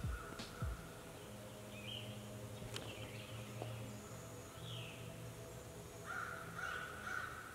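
Wild birds calling in the woods: a few short downward-slurred calls and, near the end, a steady trill, over a faint low hum.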